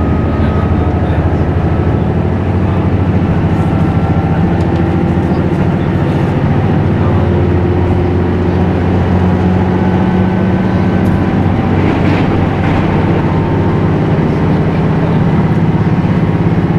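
Inside a KiHa 75 diesel railcar running at speed: the diesel engine and the wheels on the rails make a steady low drone throughout.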